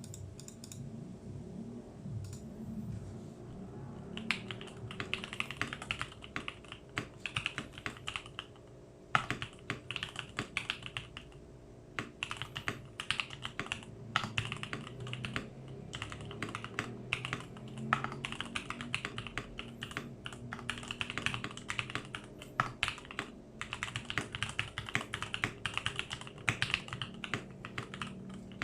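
Typing on a Tecware B68 mechanical keyboard with lubed Gateron Pro Milky Yellow linear switches, tape, PE foam and O-ring mods and lubed stabilisers. After a quieter start, fast typing begins about four seconds in and goes on in runs of keystrokes with brief pauses.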